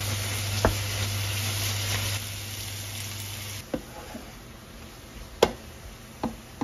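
Eggplant and pork cracklings sizzling in a frying pan while a wooden spatula stirs them, knocking against the pan about five times. The sizzle drops quieter about three and a half seconds in.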